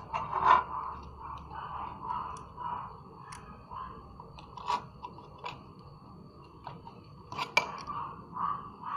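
Irregular clicks, snaps and small crunching sounds of wires and connectors being handled and fitted while wiring an amplifier board, over a steady faint tone in the background.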